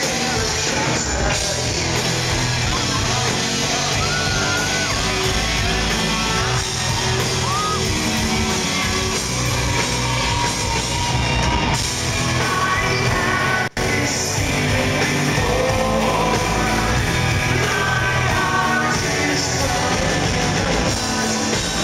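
A rock band playing live: electric guitars, drums and a male lead singer. The sound cuts out for an instant about fourteen seconds in.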